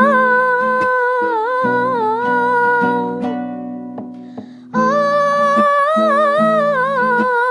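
A young male singer holding long, wordless sung notes with a slight waver, accompanied by steady strumming on an acoustic guitar. About three seconds in, the voice stops for a second and a half while the guitar carries on, then comes back with another long held note.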